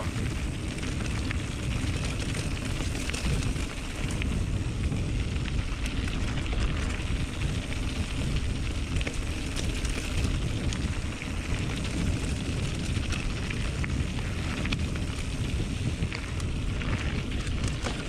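Mountain bike rolling down a dirt forest trail: steady rumble of tyres on the ground and wind on the on-bike camera's microphone, with scattered sharp clicks and rattles from the bike.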